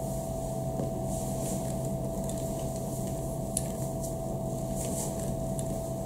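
Steady machine hum with soft swishes every second or two as a flat mop slides over a polished tile floor.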